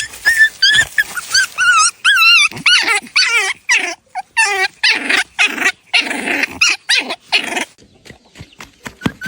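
A puppy whining and yelping in high, wavering cries, breaking into rougher growling snarls about five to seven and a half seconds in, then quieter. These are the protest sounds of a puppy that does not want to be touched.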